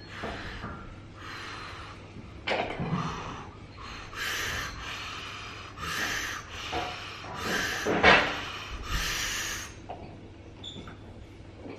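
A lifter's sharp, forceful breaths, a run of hissing inhales and exhales roughly a second or two apart, as he braces over the bar before a heavy deadlift pull. The loudest breath comes about eight seconds in.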